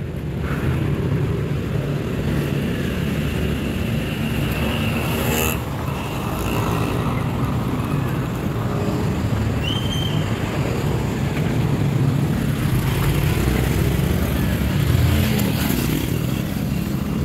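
Road traffic in a jam: cars and motorcycles idling and creeping along, a steady engine rumble, with a brief higher tone about ten seconds in.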